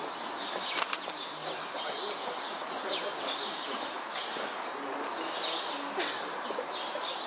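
Small birds chirping over and over, with a few sharp clicks about a second in.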